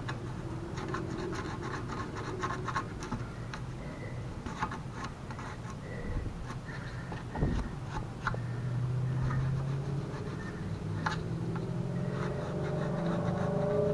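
Small dental cleaning tool scratching and scraping caked dirt out of a mobility scooter's metal rear hinge in short, irregular strokes, over a steady low hum.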